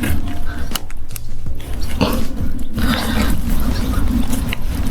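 PVC irrigation pipe being pushed and twisted into a PVC connector by hand, with scattered clicks and rubbing scrapes over a steady low rumble.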